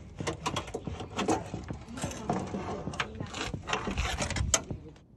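Quick, irregular clicking, rattling and scraping as gear shift cables and their hardware are worked loose and slid out under a car, with brief hissing stretches in the middle.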